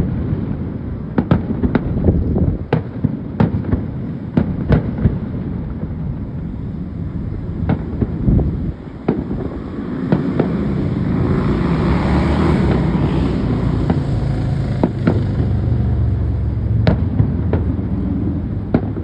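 Fireworks bursting: a run of sharp bangs, closely spaced in the first few seconds and more spread out after. A steady low rumble rises under them about halfway through.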